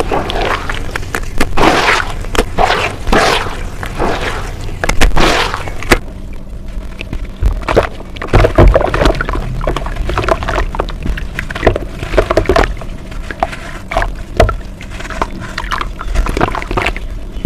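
Close-miked crunching and crumbling of brown dirt: dense and loud for about the first six seconds, then sparser sharp crackles and clicks.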